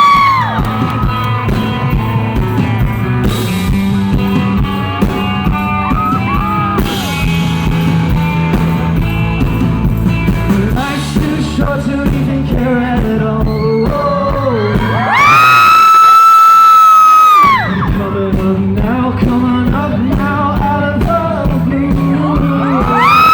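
Live rock band playing with a singer, recorded from the audience. About 15 seconds in, a loud high voice holds one pitch for about two seconds, and another loud held note starts right at the end.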